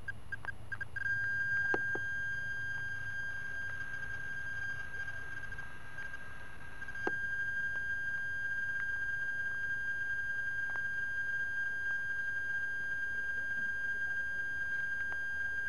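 A steady high-pitched electronic tone, pulsing in quick beeps for about the first second and then held, with a few faint clicks and a low hum that fades about halfway through.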